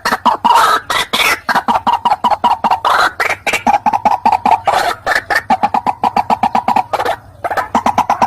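White-breasted waterhen (ruak-ruak) calling: a fast run of short, harsh notes, about seven a second, with a brief pause about seven seconds in. This is a recorded call played as a hunting lure.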